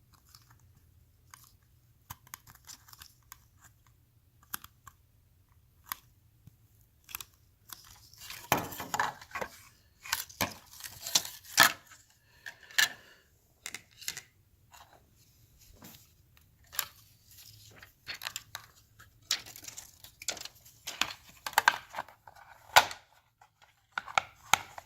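Handling noises as a replacement ribbon cable is fitted into the circuit board connector of a Nissan 350Z climate control amplifier: scattered light plastic clicks and rustles, with louder bursts of scraping and crinkling about a third of the way in and again near the end, and one sharp click near the end.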